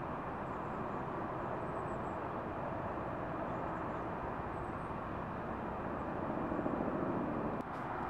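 Steady roadside traffic noise, swelling slightly as a vehicle passes near the end, then cutting off abruptly.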